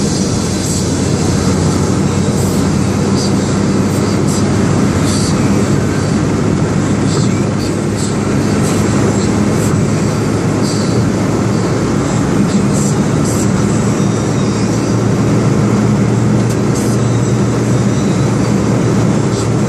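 Steady in-cabin drive noise of a Perodua Axia cruising on the highway: the low drone of its 1.0-litre three-cylinder engine under tyre and road rumble and wind noise.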